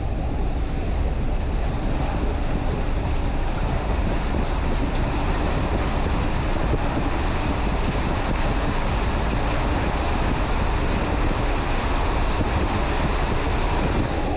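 Water-coaster raft rushing down a water-filled slide tube, with a steady loud rush of water and spray, and wind buffeting the microphone.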